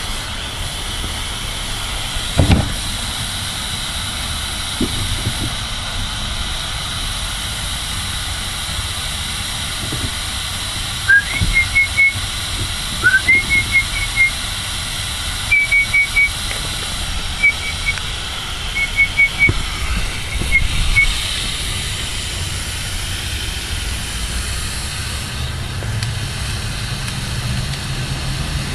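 Garden hose nozzle spraying a steady stream of water onto a lawn, a continuous hiss. Between about 11 and 21 seconds in, short high chirps come in quick groups of three or four. There is one thump a few seconds in, and a low rumble builds near the end.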